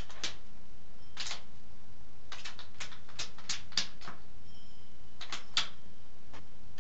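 Hen pecking in wood shavings: a string of short, sharp, irregular taps of her beak striking the floor, some coming in quick clusters of three or four.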